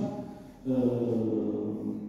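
A man's voice holding a long, level hesitation sound, a drawn-out 'ehh' of about a second that starts just over half a second in.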